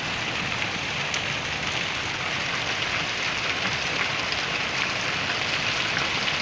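Small hail falling steadily in a storm: a dense, even hiss with a few sharp ticks of hailstones striking.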